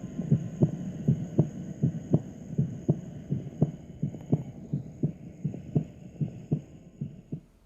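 Human heart sounds heard through a stethoscope's diaphragm: a steady lub-dub of the first and second heart sounds, repeating a little faster than once a second and fading out near the end.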